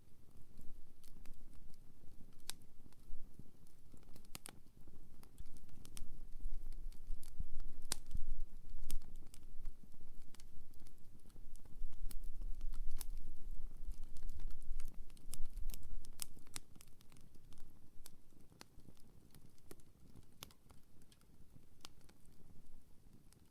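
Wood campfire crackling, with irregular sharp pops over a low rumble that swells in the middle and eases off toward the end.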